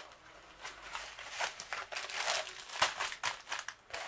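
A folded diamond-painting canvas being opened out by hand, its paper backing and plastic cover crinkling and rustling in an irregular run of crackles, loudest a little before three seconds in.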